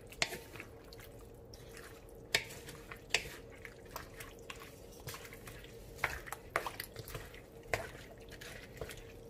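A wooden spatula stirring chopped chayote and bottle gourd through coconut milk in a metal wok: wet stirring broken by irregular knocks and scrapes of the spatula against the pan, with a faint steady hum underneath.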